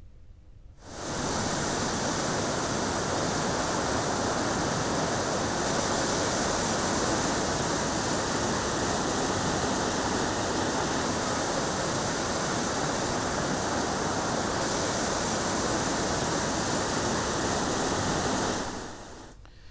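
Muddy floodwater rushing fast through a breached canal embankment, a steady, even rush that fades in about a second in and fades out just before the end.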